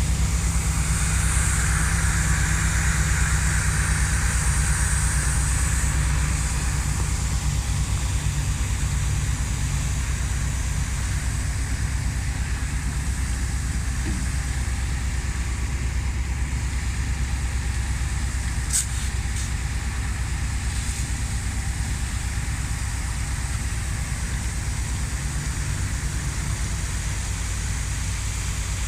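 A large engine running steadily with a deep, even drone, and a hiss over it that fades after the first several seconds. A single sharp click about 19 seconds in.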